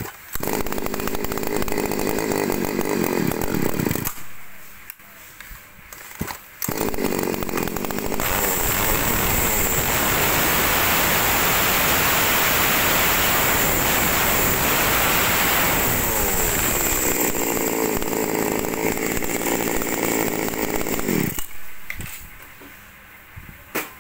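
Small Ryobi 29 cc two-stroke chainsaw being test-run. It starts and runs, drops away for a couple of seconds about four seconds in, picks up again, is held at high revs for several seconds, then eases off and cuts out suddenly near the end.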